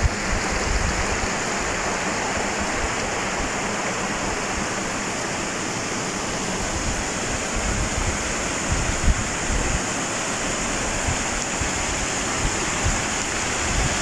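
Waterfall and stream water rushing over rock, a steady, even hiss.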